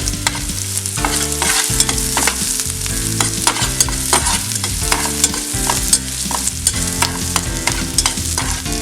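Chopped onion, cumin and pepper seeds frying in ghee in a pan: a steady sizzle, with the repeated clicks and scrapes of a spoon stirring them.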